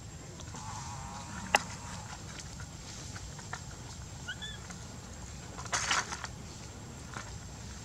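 A large dry leaf crinkling and rustling as a baby monkey grabs and presses on it: one sharp crackle about a second and a half in, and a longer rustle about six seconds in.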